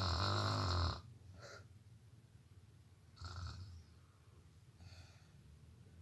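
Snoring: one loud snore lasting about a second at the start, then softer snoring breaths about three and five seconds in.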